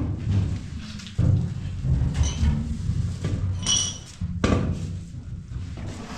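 A few knocks and thumps over a low, uneven rumble, with a brief high squeak partway through.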